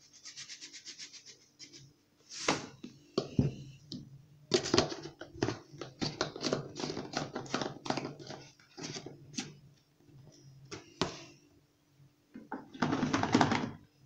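Plastic laundry-product bottles being handled: a quick run of glugs as liquid is poured into a washing machine's detergent drawer, then a string of clicks and knocks as a screw cap is turned and bottles are picked up and set down. A short louder rush of noise comes near the end.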